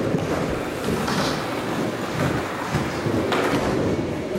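Skateboard wheels rolling steadily on a wooden mini ramp, with one sharp knock from a board about three seconds in.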